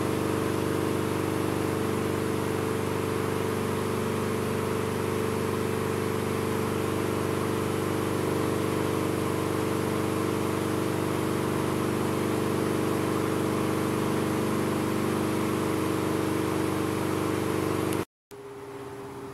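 Galaxy 16-inch table fan running steadily: an electric motor hum with several fixed tones under a broad rush of moving air. Near the end it cuts off abruptly and is followed by a much quieter, different hum.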